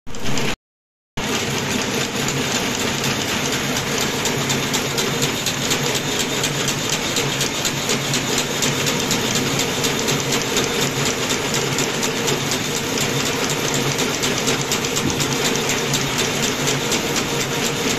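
Automatic agarbatti (incense stick) making machine running steadily, a fast, even mechanical clatter over a steady hum. The sound cuts out for about half a second near the start.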